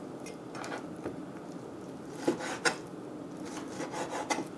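Cleaver slicing raw chicken thigh meat on a cutting board: light taps and scrapes of the blade against the board, the two loudest a little over two seconds in, with a quick run of lighter taps near the end.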